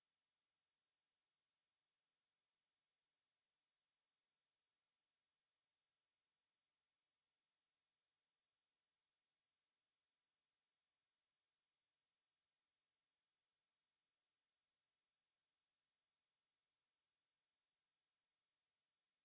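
A steady, high-pitched 5317 Hz sine-wave test tone, one pure pitch held at constant level.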